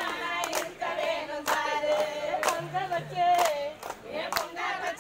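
A group of women singing a Tamil kummi folk song in chorus, with sharp hand claps keeping time.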